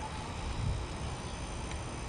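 Steady low background rumble, with a faint tick about three-quarters of the way through.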